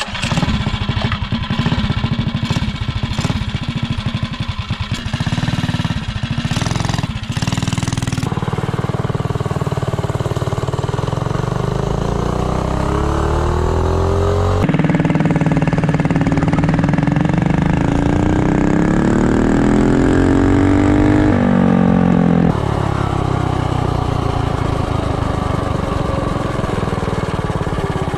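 Harbor Freight 212cc Ghost kart engine on a minibike running, then pulling at full throttle with its pitch climbing as the bike accelerates. The pitch climbs twice, breaks off sharply once, then drops and settles.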